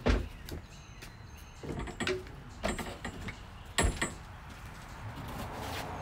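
A few separate clunks and knocks of metal tools and parts being handled, the sharpest about four seconds in, with a low hiss-like noise rising near the end.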